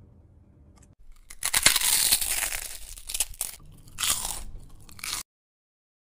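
Loud crunching of a bite into a crispy fried rice square, followed by a few more crunchy chews in bursts. It starts about a second and a half in and cuts off suddenly about five seconds in.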